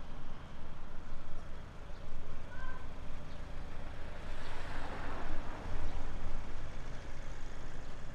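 Queued road traffic: car and van engines idling and creeping forward, a steady low rumble, with a hissing swell about halfway through.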